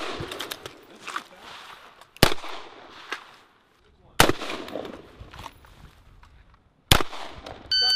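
Three single shots from an M4-type carbine, about two seconds apart, each ringing out in a short echo across the range. Near the end a shot timer gives a short electronic beep.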